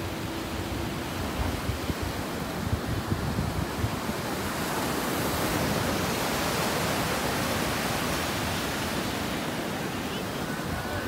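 Ocean surf breaking and washing ashore, a continuous rushing that swells louder about halfway through, with wind buffeting the microphone.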